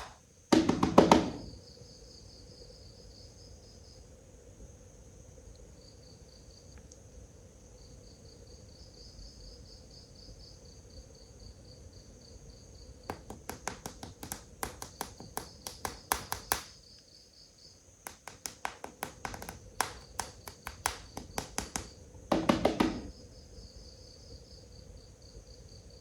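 Crickets chirping in pulsed trains, with two runs of rapid clicks and taps partway through and two short louder bursts, one about a second in and one near the end.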